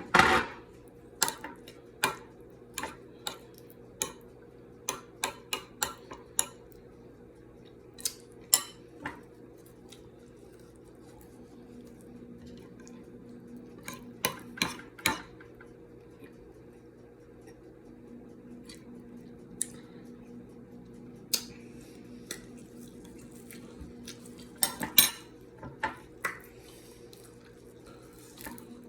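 Cutlery clinking against a plate while eating: sharp, irregular clinks, busiest in the first ten seconds and again around fifteen and twenty-five seconds in, over a steady low hum.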